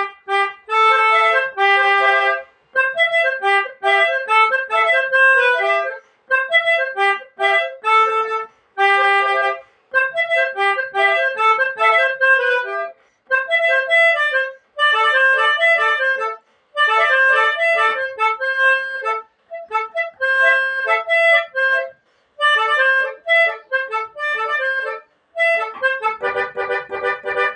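Melodica (pianika) playing a telolet bus-horn style melody in short phrases with brief pauses between them, closing with several notes held together as chords.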